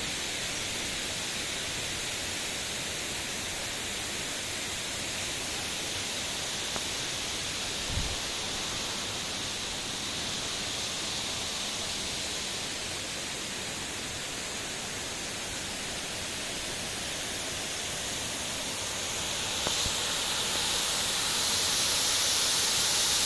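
Waterfall: the steady, even rush of falling water, growing louder and brighter near the end. A brief low thump about 8 seconds in.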